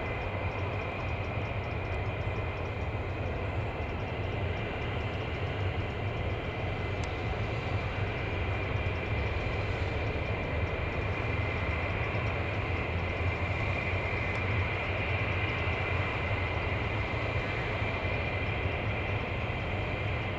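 F-15E Strike Eagle's twin Pratt & Whitney F100 turbofans running steadily at taxi power: a high whine over a low rumble. It grows slightly louder about eight seconds in.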